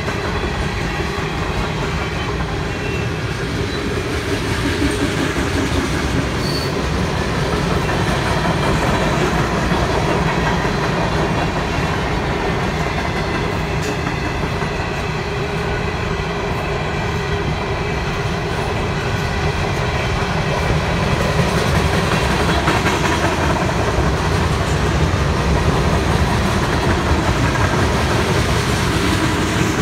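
Freight train's tank cars and covered hopper cars rolling past close by: a steady, loud rumble of steel wheels on rail with some clickety-clack.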